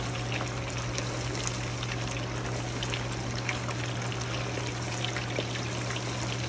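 Chicken wings deep-frying in hot canola oil: a steady bubbling sizzle with many small pops and crackles as they are stirred with metal tongs. A steady low hum runs underneath.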